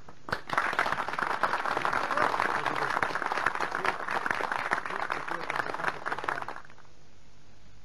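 A group of people applauding: a dense clatter of hand clapping that starts about half a second in and stops about a second before the end.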